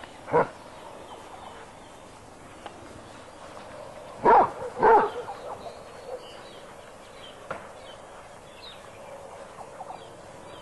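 Basset hound barking in short bays with a wavering pitch: one about half a second in, then two close together a little after four seconds.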